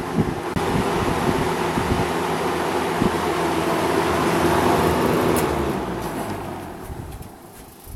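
A 20-inch box fan with a Westinghouse motor, blowing steadily with a low hum, then fading away over the last few seconds as the blades slow down.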